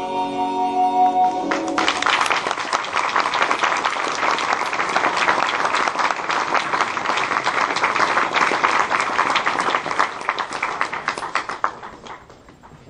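A song's held final chord ends about a second and a half in, and an audience breaks into applause, dense clapping that goes on for about ten seconds before dying away near the end.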